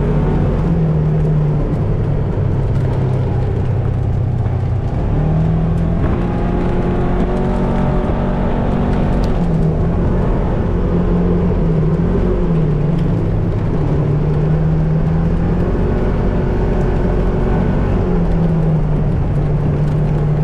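A vehicle's engine running steadily, its pitch stepping up and down every few seconds as the speed changes.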